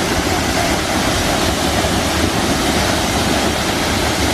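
Sendang Gile waterfall's falling water, a loud, steady rush.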